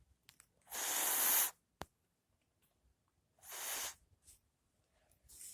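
Domestic cat snoring: airy, hissing breaths about every two and a half seconds, the first the loudest, with a single short click between the first two.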